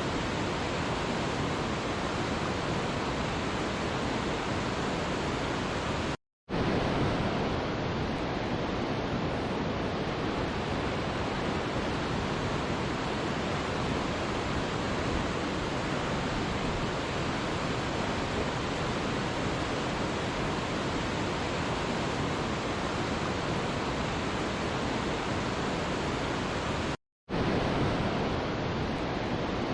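Waterfall rushing: a steady, even roar of falling water. It cuts out to silence for a split second twice, about six seconds in and again near the end.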